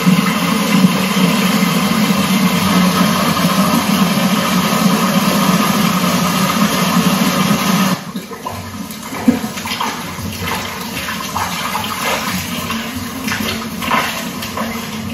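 Water running and splashing into a metal pot as raw meat is washed by hand, a loud steady rush. About halfway through it gives way suddenly to a quieter shallow stream trickling and gurgling over mud, with many small splashes.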